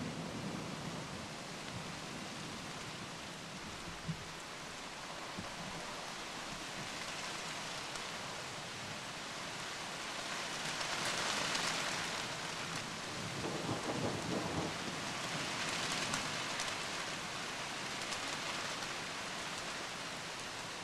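Steady heavy rain during a thunderstorm, with the last of a thunderclap dying away at the very start. The rain swells louder about halfway through and again a few seconds later.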